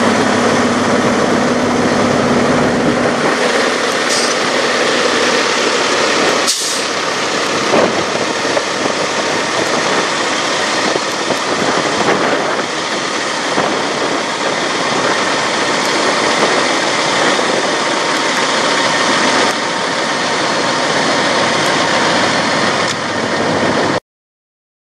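Peterbilt semi tractor's diesel engine idling steadily, heard close up. There is a single sharp click about six and a half seconds in.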